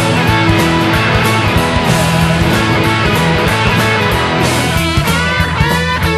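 Blues-rock band recording: electric guitar, bass and drums playing a driving instrumental riff. About five seconds in, a lead line of sliding, bending high notes comes in over it.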